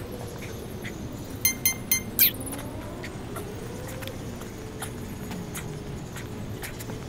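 Road traffic going by, its engine pitch slowly rising and falling over a steady background hum, with a quick cluster of short, sharp high sounds about one and a half to two seconds in.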